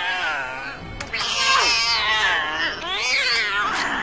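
Drawn-out screeching, yowling cries sliding up and down in pitch: the cat and the monstrous Other Mother shrieking over the film's dramatic score. The cries grow louder about a second in.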